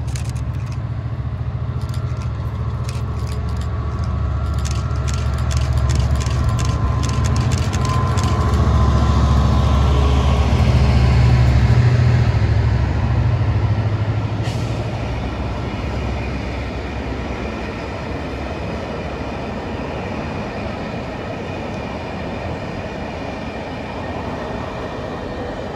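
Class 67 diesel-electric locomotive's two-stroke V12 engine running as the train passes, growing to its loudest about ten seconds in and then fading, with a whine falling in pitch as it goes by. After it come the coaches rolling past with a steady rumble, and a run of sharp clicks sounds in the first several seconds.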